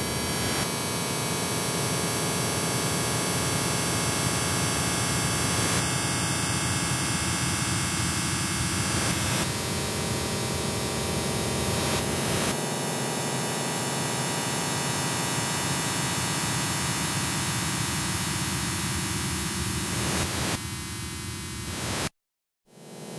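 Industrial noise music: a dense wall of hiss and static layered with many held tones and a hum, its texture shifting abruptly every few seconds. Near the end it thins, then cuts out to silence for about half a second before coming back quieter.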